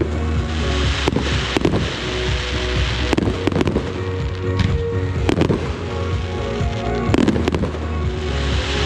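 Fireworks bursting, a dozen or so sharp bangs at irregular intervals with bursts of hiss and crackle, over music playing throughout.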